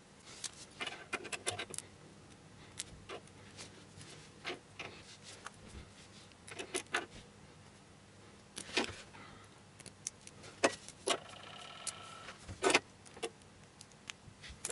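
Small plastic mounting pieces of a CPU liquid-cooler bracket being handled and clicked into place on the back-plate studs around the CPU socket: scattered light clicks and rattles, with a brief scraping rasp about eleven seconds in.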